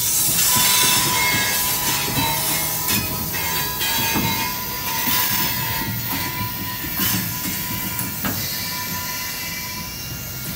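Loaded freight gondola cars rolling past on a curve: steel wheels squealing against the rail in a steady high squeal over a low rumble, with a few sharp clanks. The sound slowly fades as the cars move away.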